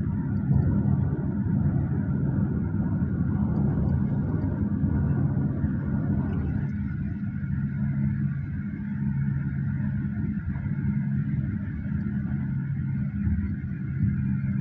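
Road and engine noise inside a moving Hyundai Staria van's cabin: a steady low rumble with a faint hum in it. The hiss above the rumble thins about halfway through.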